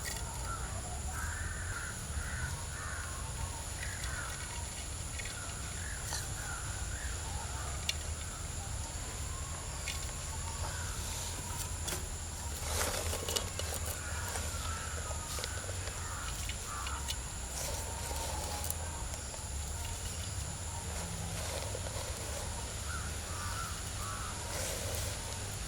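Crows cawing now and then over a steady high-pitched drone and a low rumble. A brief clatter comes about halfway through.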